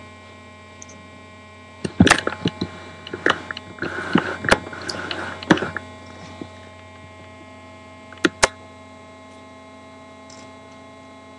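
Steady electrical hum with a cluster of knocks, clicks and rustling from about two to six seconds in, then two sharp clicks close together about eight seconds in, from things being handled close to the microphone.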